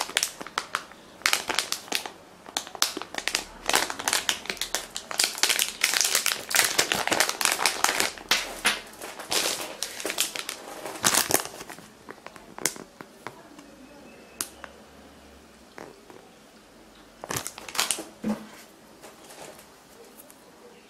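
Crinkling and crackling of a plastic packaging pouch being handled and opened, dense and irregular for about the first twelve seconds, then sparser crackles.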